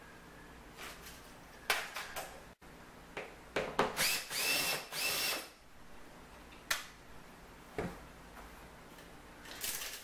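Cordless drill running in two short bursts with a steady whine, about four and five seconds in, amid clicks and knocks of handling the tool and the sheet-metal panel; a short rattle near the end.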